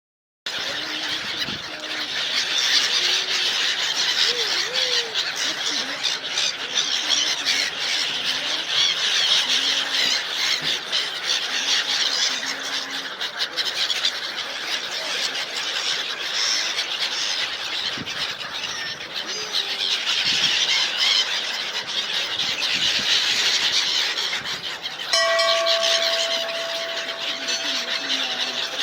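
A flock of many small birds chirping at once, a dense, continuous, high-pitched chatter. Near the end a steady held tone joins in.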